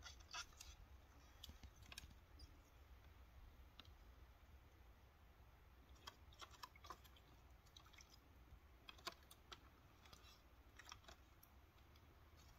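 Faint, scattered clicks and taps from a cat pawing at water in a shallow plastic tray, coming in short clusters a few seconds apart.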